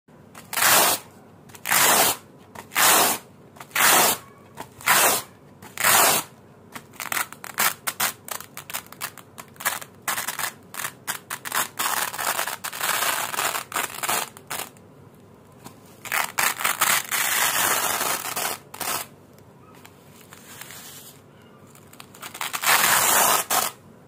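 Black hook-and-loop (Velcro) strips being pulled apart by hand with a crunchy ripping sound. First come six short separate rips about a second apart, then a run of quick crackling rips and longer continuous tears, and one last long rip near the end.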